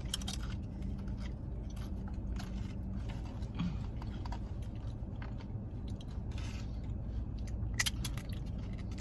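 Close-up chewing and crunching on tortilla chips: irregular crisp crackles and mouth sounds. A steady low hum runs underneath from the car's air conditioning on low.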